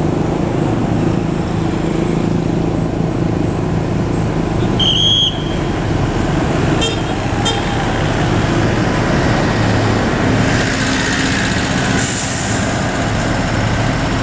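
Diesel engines of a heavy truck and a Mercedes-Benz OH 1626 coach running as they drive past and pull in, a steady low rumble. A short horn toot comes about five seconds in, and a hiss of air near the end.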